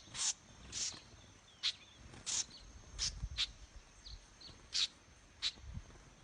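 Small birds giving short, sharp alarm calls, repeated at irregular intervals, as when they mob a snake.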